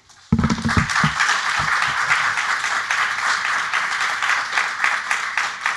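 Audience applauding, a dense patter of many hands clapping that starts suddenly and keeps up steadily. A few low thumps near the start come from a handheld microphone being set down on the table.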